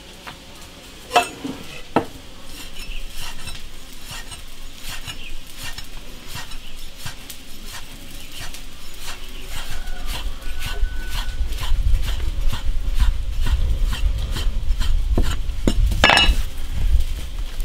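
Metal utensils clinking and scraping against cookware in quick repeated strokes, with two sharper knocks a second or two in. A low rumble builds from about ten seconds in.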